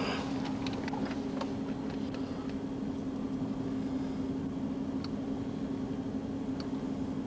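Steady low hum inside a parked police patrol car, with a few scattered faint ticks.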